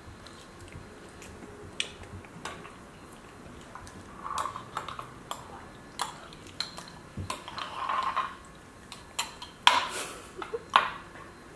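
Plastic spoons scraping and clinking against small glass jars of porridge, with scattered light clicks and two short scraping bursts. Two sharper knocks come near the end.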